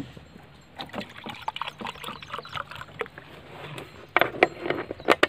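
Metal cooking vessels being handled beside a wood fire: scattered clinks and knocks, with a few sharper clanks about four seconds in.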